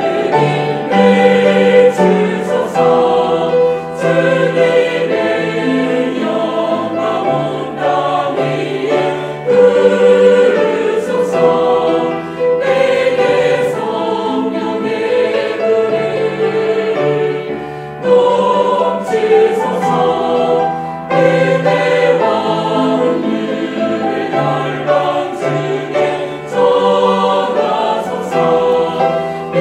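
Mixed church choir singing a slow hymn in Korean in several parts, with a cello, violin and piano accompanying.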